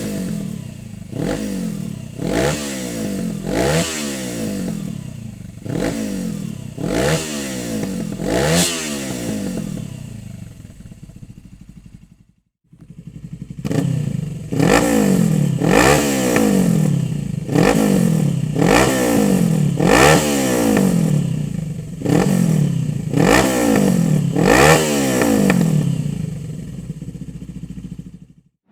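Suzuki GS 500 parallel-twin engine through an aftermarket Dominator exhaust, blipped repeatedly from idle, the revs rising and falling again about once a second. It settles back to idle, cuts off briefly, then a second run of throttle blips follows and eases back to idle near the end.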